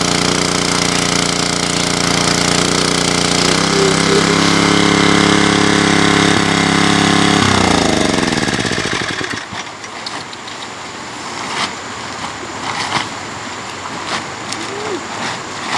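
A small engine running steadily, its sound shifting about three and a half seconds in, then slowing with a falling pitch and dying away about halfway through. After it stops, a few short sharp knocks.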